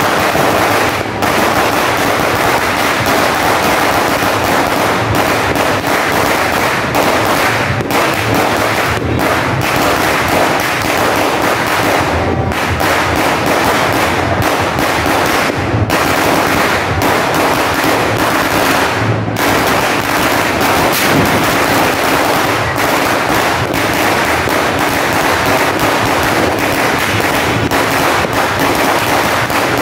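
A 5,000-round sinturon ni Hudas, a long belt of firecrackers, going off in an unbroken, rapid-fire crackle of bangs, with a few split-second lulls.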